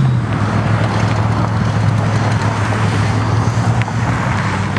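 A motor vehicle's engine running steadily with road noise, its low hum dropping slightly in pitch at the start.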